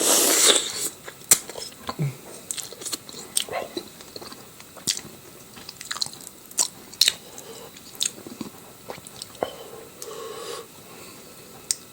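A person eating close to the microphone: chewing and biting with many sharp, irregular mouth clicks and smacks, and a louder noisy bite or slurp at the very start.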